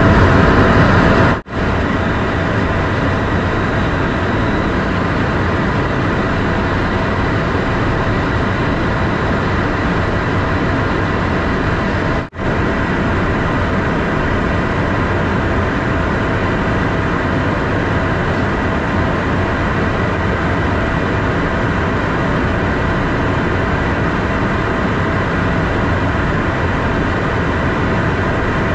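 Cockpit noise of a Cessna Citation M2 in flight: a steady, even rush of airflow and its twin Williams FJ44 turbofans. The sound cuts out for an instant twice, about a second and a half in and about twelve seconds in.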